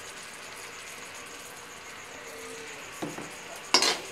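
A paneer, milk and condensed-milk mixture cooking in a metal kadhai with a faint, steady sizzle. About three seconds in, a metal spatula knocks and then scrapes loudly against the pan as stirring starts.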